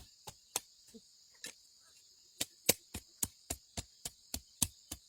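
A run of sharp clicks or snaps, sparse at first, then about three to four a second through the second half. Under them is a steady high drone of insects such as crickets.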